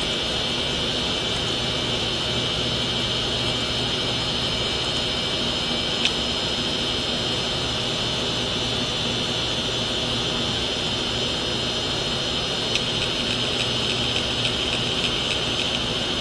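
Uncovered hard disk drive running: a steady high whine from the spinning platter and spindle motor, with the read/write head actuator clicking as it seeks. There is a sharp click about six seconds in, and a run of lighter ticks near the end.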